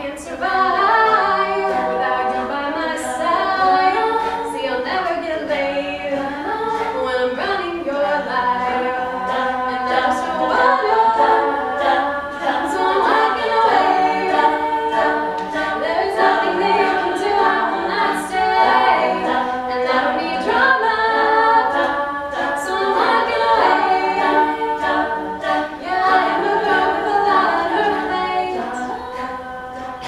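A cappella group singing: a female soloist's lead over layered backing harmonies from the ensemble, with no instruments.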